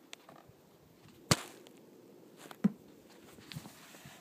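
Handling noise: a few sharp knocks and clicks as plastic toy figures and the filming phone are moved about, the loudest a little over a second in and another about two and a half seconds in.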